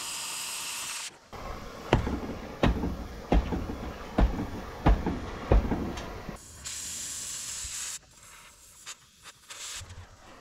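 Cutting torch hissing steadily as it burns through a rusty steel truck frame rail, in two stretches that stop abruptly. Between them come about seven sharp metal knocks, roughly two-thirds of a second apart.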